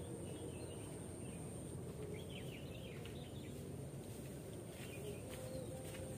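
Outdoor ambience: a steady low background noise with faint bird chirps, a short run of quick falling chirps about two seconds in, over a thin constant high tone.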